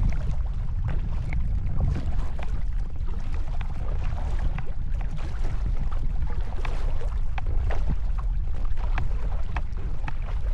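Strong wind rumbling on the microphone, over small splashes and drips from a kayak paddle stroking through choppy lake water.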